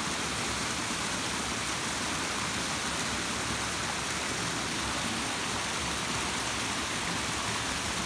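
Steady rushing of water pouring over a small waterfall: an even, unbroken hiss.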